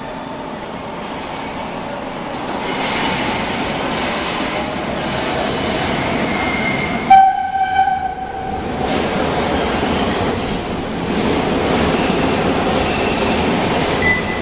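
MARTA rapid transit train approaching through the tunnel and entering the underground station, its rumble on the rails building steadily. About halfway through it sounds its horn in one loud blast followed by shorter toots.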